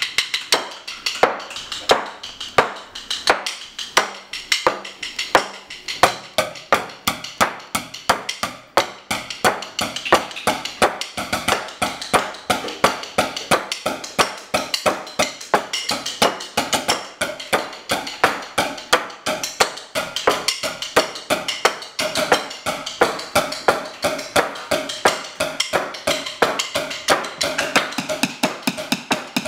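Drumsticks beating a fast, steady rhythm on household furniture and walls: a dense run of sharp wooden taps and knocks.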